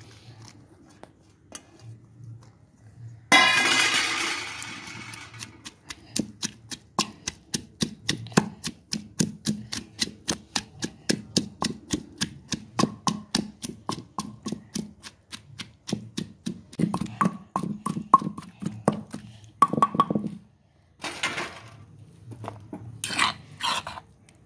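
Chopped onions pounded in a stone mortar with a wooden pestle: a quick, steady run of thuds, about four a second, crushing them to a paste. About three seconds in comes a single loud ringing clang, and near the end a spoon scrapes and clinks against the mortar.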